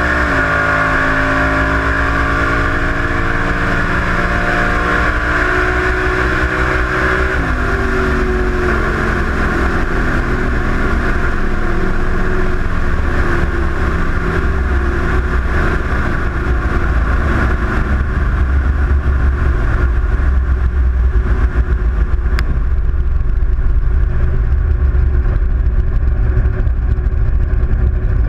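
Chevy Nova's engine winding down after a drag-strip pass: its pitch falls, jumps back up about seven and a half seconds in, then falls again. Later the car cruises at low revs, with heavy wind rumble on the outside-mounted camera's microphone.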